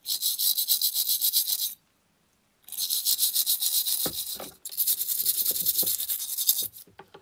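Small wire brush scrubbing a brass blowtorch part with rapid back-and-forth strokes, loosening carbon deposits softened by carbon remover. There are three bouts of brushing with short pauses between them.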